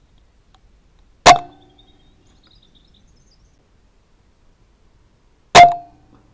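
Two shots from a Brocock Compatto .177 air rifle, about four seconds apart, each a sharp crack followed by a short metallic ring.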